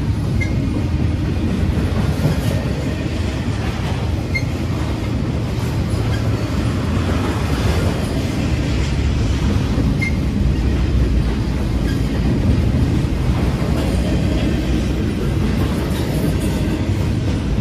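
Double-stack intermodal freight train's loaded well cars rolling past: a steady, loud rumble of steel wheels on the rails.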